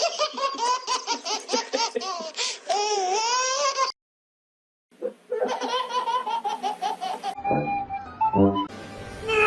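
A small child laughing in quick repeated bursts for about four seconds, then a cut to a second of silence, followed by more bursts of laughter with music.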